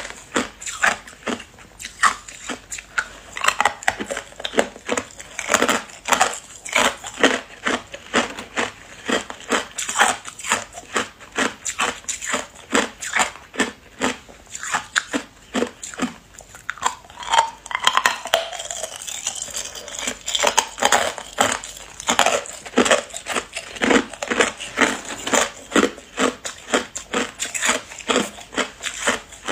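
Clear hard ice cubes bitten and crunched between the teeth, a steady run of sharp cracks about two or three a second, picked up close by a clip-on microphone.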